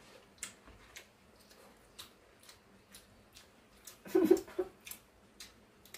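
Eating steamed waxy corn on the cob: scattered sharp clicks of teeth biting kernels off the cob and chewing, with a short hum of voice about four seconds in.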